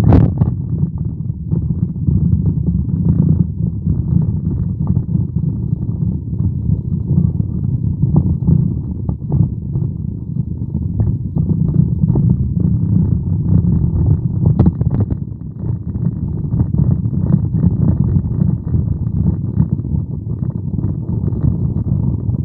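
A car's engine and road noise rumbling low and steady inside the cabin while driving, with scattered small rattles and one sharper knock about fifteen seconds in.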